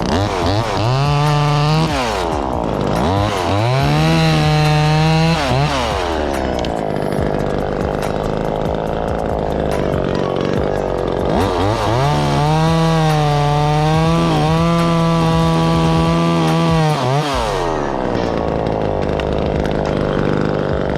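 Chainsaw revving up to full throttle three times to cut maple limbs, holding high for a few seconds each time (the longest near the middle), and dropping back to idle in between and near the end.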